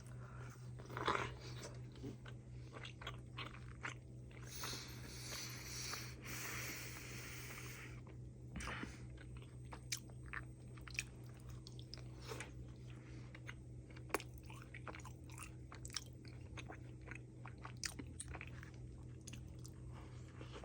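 Close, quiet chewing of a milk-dunked footlong cookie: soft wet mouth clicks and smacks throughout, over a steady low hum. A stretch of hiss runs from about four and a half to eight seconds in.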